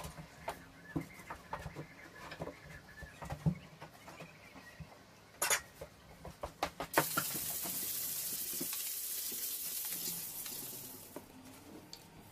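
Light knocks and clatter of wooden offcuts being handled, with a quick run of sharp knocks about halfway through as scraps drop into a wooden tray. Then comes a steady hiss lasting about four seconds, the loudest sound here, which fades out.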